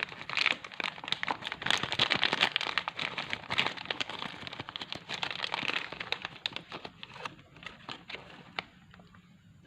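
Hands handling small plastic parts and wiring: dense crinkling and clicking that thins out and fades after about seven seconds.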